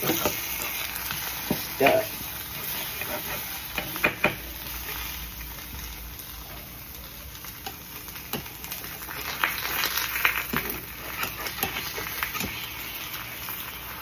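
Two eggs sizzling in olive oil in a small non-stick skillet, with a spatula scraping and tapping against the pan several times as it works under the eggs, most around two and four seconds in and a cluster near the middle-end.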